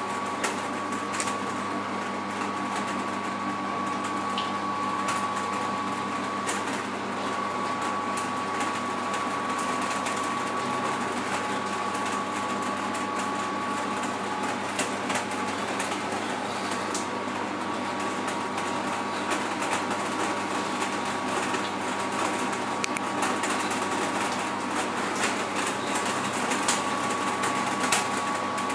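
A steady mechanical hum with a high, even whine, and faint scattered clicks.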